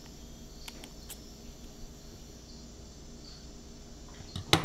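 Scissors cutting into a paper cone: a couple of faint snips about a second in, then a louder, sharper cut near the end, over a faint steady background hum.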